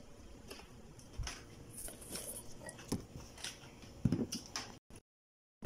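Faint eating sounds at a table: scattered small clicks of cutlery on a plate and chewing. The sound cuts to dead silence shortly before the end.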